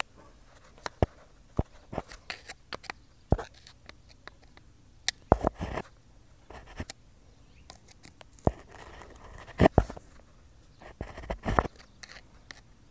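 Irregular clicks and light knocks of a screwdriver turning and seating small Phillips screws on a carburetor cover.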